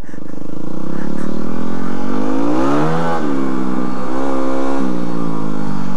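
Yamaha WR250R dual-sport motorcycle's single-cylinder four-stroke engine accelerating, its pitch rising to about three seconds in, then dropping as the throttle eases, a second shorter rise, and easing off again near the end.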